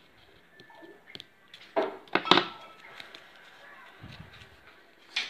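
Scissors cutting cardboard: a couple of loud, sharp snips about two seconds in, with small handling clicks around them and a low dull knock near four seconds.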